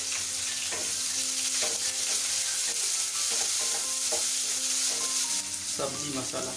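Freshly added chopped onions sizzling in hot oil in a kadhai, stirred with a wooden spatula that scrapes across the pan at irregular intervals.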